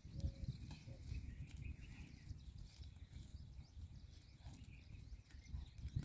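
Faint, uneven low rumble of wind on the microphone, with light footfalls of a calf and a man running on sandy ground.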